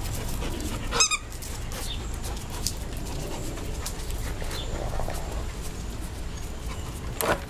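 A dog's short, high yelp about a second in and a louder, sharp sound near the end, over a steady low rumble.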